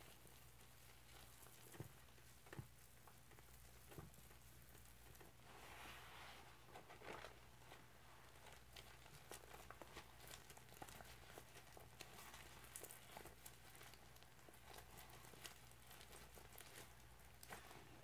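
Faint wet squelching and dripping of a soapy Scrub Daddy sponge squeezed in a bucket of foamy cleanser paste, with scattered small clicks and crackles. A denser stretch of squishing comes about six to seven seconds in.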